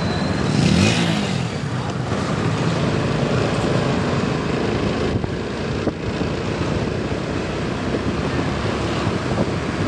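A scooter in motion: engine running under steady wind and road noise, with a brief louder swell about a second in.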